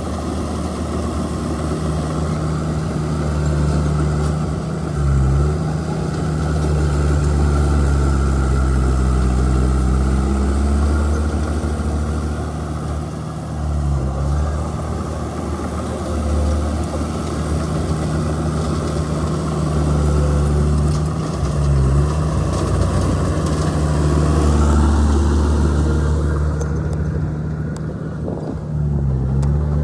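Bulldozer's diesel engine running steadily under load. Its pitch dips briefly and recovers four times.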